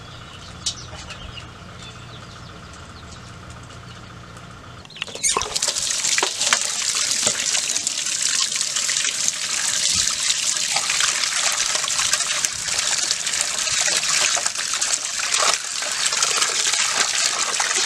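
Tap water gushing into a metal basin and over a plucked duck as hands rub it clean, starting suddenly about five seconds in. Before that, only a quieter steady background.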